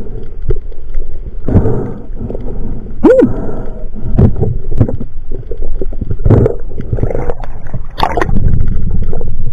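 Muffled underwater rushing and gurgling of water heard through an action camera's housing as a spearfisher swims, with scattered short bursts. Louder splashing and churning comes about eight seconds in as the camera breaks the surface.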